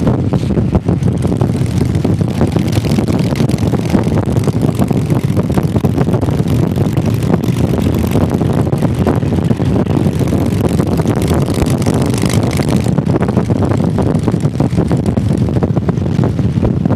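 Motorcycle engine running steadily at cruising speed, with wind noise on the microphone that is stronger through the middle.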